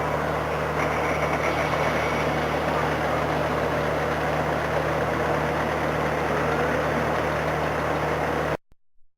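Diesel passenger train's engine running steadily at a standstill with a low hum, over a noisy background of voices; it cuts off suddenly near the end.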